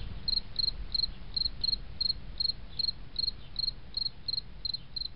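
Crickets chirping in a steady rhythm of about three short, high chirps a second, over a low rumble.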